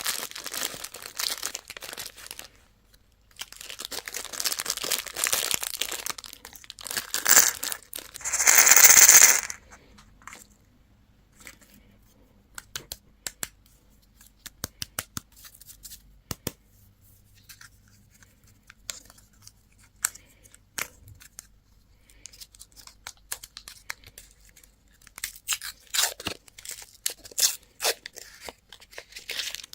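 Plastic candy wrappers crinkling and being torn open, with one loud tear about nine seconds in. After it come scattered small clicks and rustles, and more crinkling near the end.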